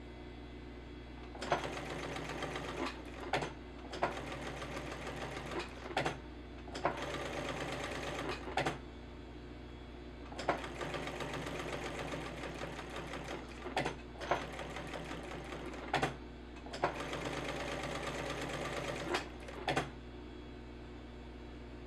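Sewing machine stitching in about six short runs of a couple of seconds each, stopping and starting again with sharp clicks between runs.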